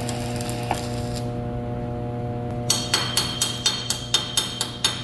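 Stick-welding arc crackling as a 6013 electrode burns, stopping about a second in. Then a chipping hammer knocks slag off the fresh weld on a steel square tube: quick, ringing metallic strikes, about four a second.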